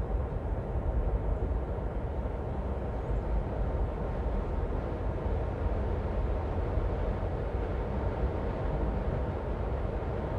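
Steady low rumble of a car being driven along a road: tyre and engine noise, strongest in the deep bass, with no distinct events.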